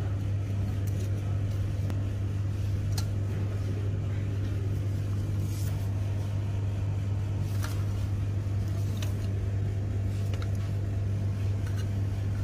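A steady low hum, with a few light clicks and taps as the fuser heat roller's drive gear and bearing are handled.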